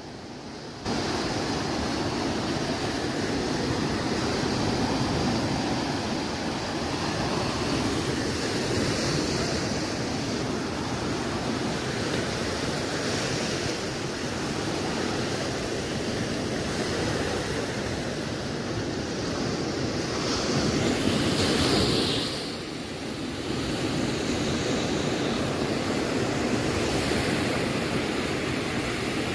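Sea surf breaking and washing up a sandy beach: a steady rush of waves that gets suddenly louder about a second in.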